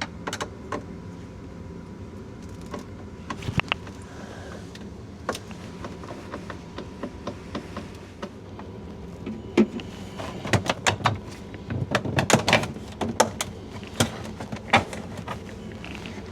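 Scattered clicks, knocks and clatters of items and parts being handled inside an RV refrigerator while checking it for frost, a few at first and then a dense run of them past the middle, over a steady background hum.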